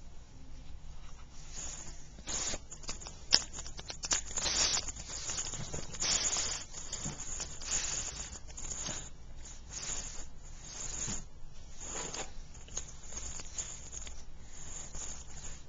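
Pug snoring and snorting: a run of noisy breaths, irregularly spaced about a second apart, with one sharp click about three seconds in.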